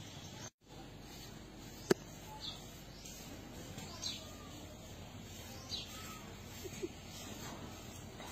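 Outdoor farmyard ambience with short, falling bird chirps every second or two and a single sharp click about two seconds in; the sound cuts out completely for a moment half a second in.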